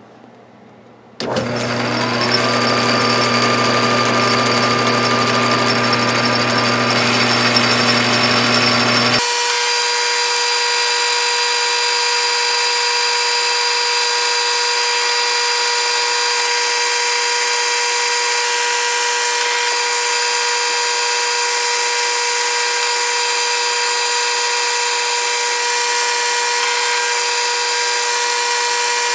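Metal lathe starting about a second in and running steadily with a whine while it turns bronze rod stock. About nine seconds in its low hum drops away, leaving a steady higher whine.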